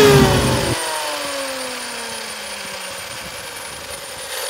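Brushless motor and drivetrain of an Arrma Limitless RC car, wheels spinning free in the air, winding down after full throttle: a whine that falls steadily in pitch and fades. The low rumble drops out under a second in.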